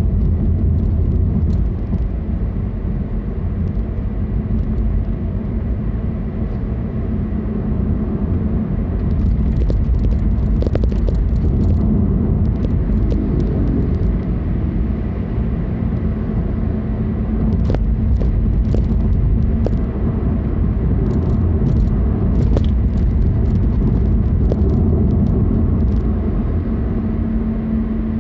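Car driving on the road: a steady low rumble of engine and tyre noise, with scattered light clicks now and then.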